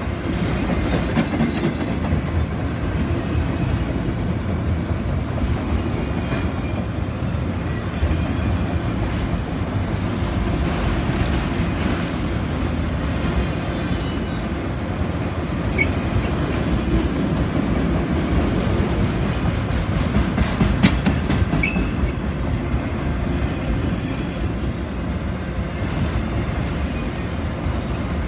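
Autorack freight cars rolling past close by: a steady rumble of steel wheels on the rails, with occasional sharp clicks and a couple of brief high wheel squeaks.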